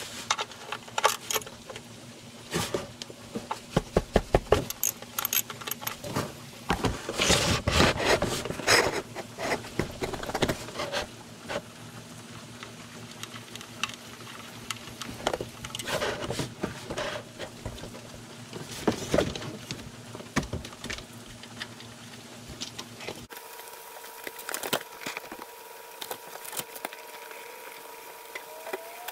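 Ratchet socket wrench clicking in quick runs as it loosens an oil pan drain plug, then scattered clicks and knocks of hand work on the plug. Near the end the background changes to a steady hum.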